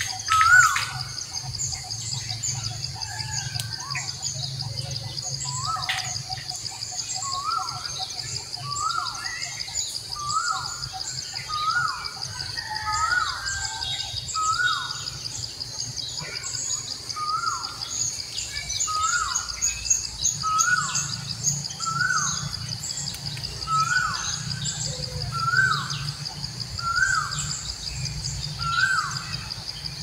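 Forest ambience: a bird repeats a short whistled note about once a second over a steady, high insect drone, with other small chirps higher up. Two sharp clicks near the start.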